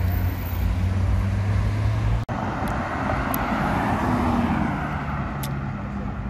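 Ferrari California's V8 running with a steady low drone as the car drives off, cut off sharply about two seconds in. Then a Porsche Panamera passes close by with a swell of tyre and engine noise that fades as it drives away.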